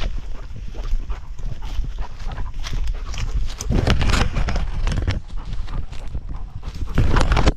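A tracking dog running through grass and brush, heard from a camera strapped to its back: rapid uneven footfalls and vegetation scraping over the camera, louder about four seconds in. The sound cuts off suddenly at the end.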